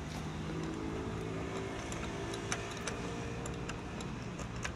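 Light plastic clicks and ticks of wiring connectors being handled, a few sharp ones standing out, over a steady low engine hum.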